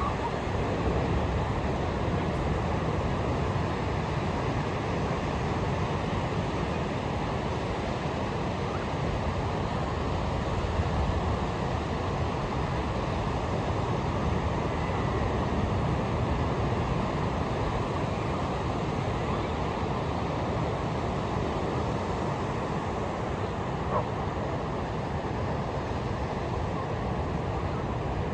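Ocean surf on a beach: a steady, unbroken rush of breaking waves.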